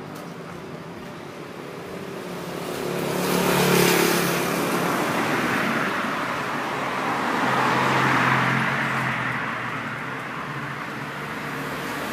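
Road vehicles passing: engine hum and tyre noise rise and fall, loudest about four seconds in and again about eight seconds in.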